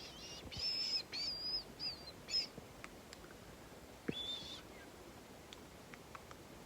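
A bird chirping: a quick series of short, high-pitched chirps, then one more chirp about four seconds in.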